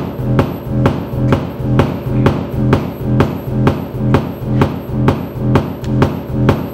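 Live electronic noise music from handmade circuit instruments played through an amplifier: a repeating pattern of sharp clicks, two to three a second, over a low humming drone that swells and fades about once a second.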